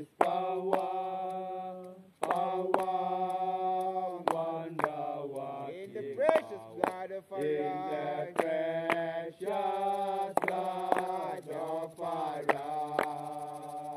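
Voices chanting a hymn in long held notes over a steady low note, with sharp percussive beats now and then.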